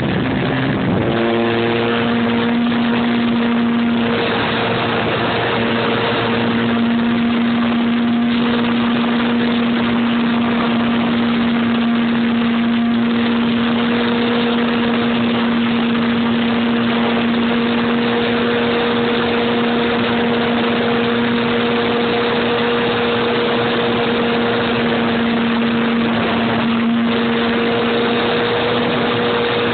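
RC airplane's motor and propeller heard from the camera on board the plane in flight, a steady drone that settles about a second in and holds nearly the same pitch, over a rushing hiss.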